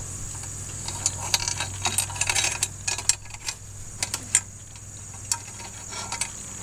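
Rusty roller chain rattling and clinking as it is handled: irregular small metallic clicks, thickest in the first half.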